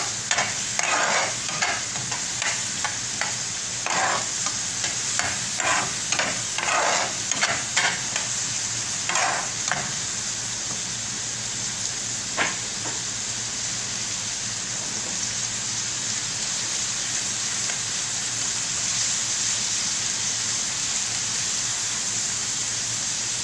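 Onions frying in hot cooking oil in a pan, sizzling steadily. For the first ten seconds or so they are stirred in short scraping strokes, with one sharp click near the middle, after which only the sizzling goes on.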